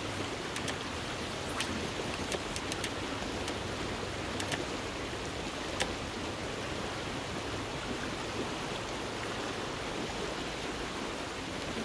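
Steady rushing of a river running high, with a few faint ticks scattered through it.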